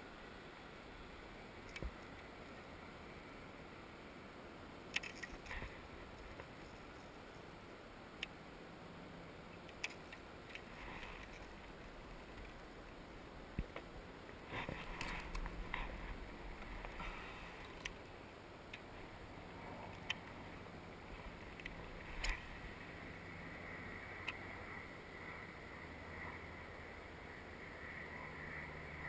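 Faint, scattered clicks and knocks of fishing rod and gear being handled aboard a plastic kayak, with a denser run of them about halfway through.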